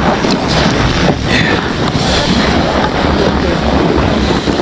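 Loud wind noise buffeting the camera's microphone: a steady rushing roar with heavy low rumble.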